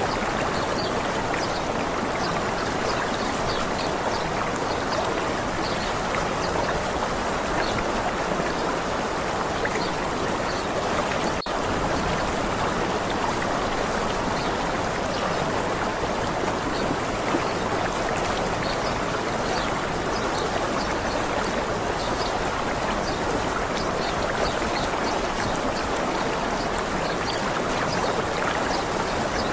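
Waterfall water running steadily in an even rushing hiss, with a momentary dropout about eleven seconds in.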